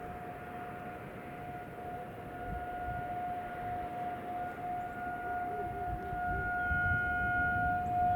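Outdoor warning siren sounding a steady single tone, heard from a distance and swelling louder in the second half, over low traffic rumble.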